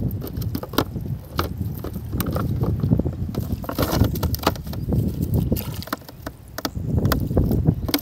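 Wind buffeting the microphone in gusts, with scattered sharp clicks and rustles as a cast net and caught fish are handled over a plastic basket.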